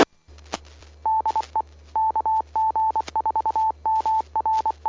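Amateur radio repeater sending its automatic Morse code identification: a single tone near 1 kHz keyed in a string of dots and dashes, starting about a second in. A sharp click comes at the start, and a steady low hum runs underneath.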